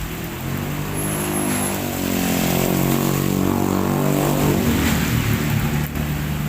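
Heavy rain falling steadily, with a motor vehicle's engine passing by, growing louder over the first few seconds and fading near the end.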